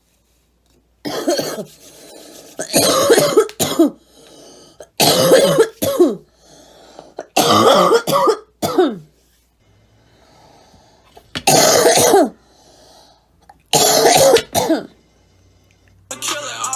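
A girl coughing in six fits of two or three coughs each, about two seconds apart, with faint breaths drawn in between.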